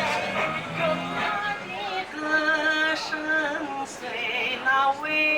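Music: a slow song whose melody moves in long, wavering held notes over accompaniment.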